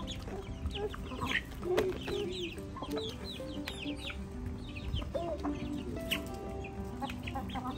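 Aseel chickens clucking, with many short high chirps scattered throughout.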